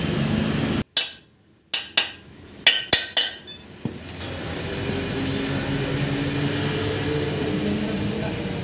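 Sharp metallic knocks and clinks from metal gearbox parts of a Mahindra Bolero, about seven over two to three seconds, each ringing briefly, as the parts are fitted onto the casing. A steady low workshop hum returns after them.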